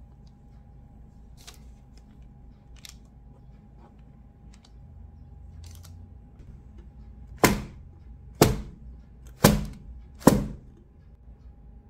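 A metal baking tray full of sponge-cake batter banged down on the counter four times, about a second apart, to knock out air bubbles before baking. Before that, faint light clicks of the spatula spreading the batter.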